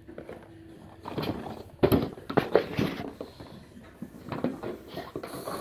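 A dog mouthing and pawing at a cardboard box on carpet: a series of knocks and scuffs as the box is bumped and shoved about, the sharpest about two seconds in.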